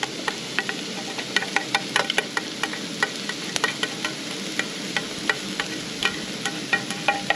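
Onions and pork frying in oil in pans on portable gas cartridge stoves: a steady sizzle with frequent sharp, irregular crackles.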